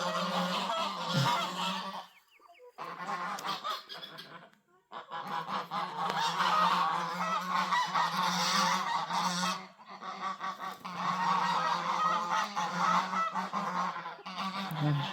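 A flock of domestic geese honking and calling together, with short lulls a few times.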